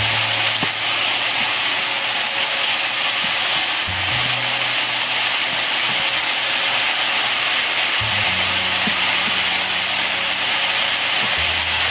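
Shredded cabbage egg roll filling frying in a nonstick skillet, a steady sizzling hiss, while it is stirred with a wooden spatula.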